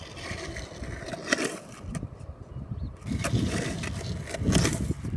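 Skateboard wheels rolling on rough asphalt, a low rumble that grows louder about three seconds in. A few sharp clacks of the board come through, the clearest about a second and a half in and near the end.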